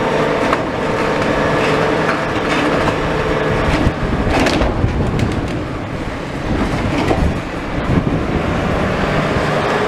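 Skip truck's engine running as it brings a big empty skip forward, with clanks and rattles from the skip and a steady whine that stops a few seconds in. A sharper clank comes about four seconds in.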